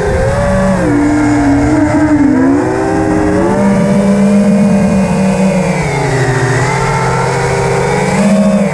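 FPV quadcopter's brushless motors whining, the pitch rising and falling with the throttle, with a dip in pitch about six seconds in, heard through the drone's onboard camera.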